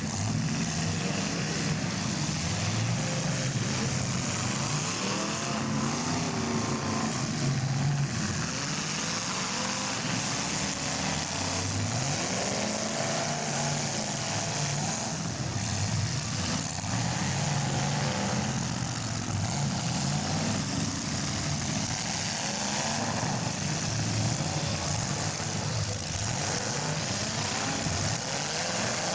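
Several big demolition-derby cars' engines revving at once, their overlapping notes rising and falling as they accelerate and back off.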